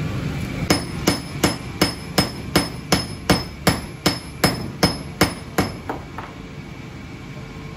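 Hand hammer beating a red-hot piece of steel on a round steel block: about fourteen quick, even blows, close to three a second, each with a bright metallic ring, then two lighter taps, and it stops.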